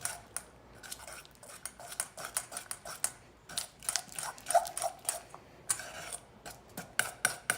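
A spoon stirring glue slime in a bowl as contact-solution activator is worked in, making irregular clicks and short scrapes against the bowl.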